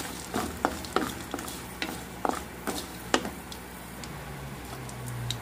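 Wooden spatula scraping and tapping against a kadai while stirring dry red chillies, coconut, ginger and amla pieces frying in a little oil on a low flame. About ten quick scrapes over the first three seconds, then quieter.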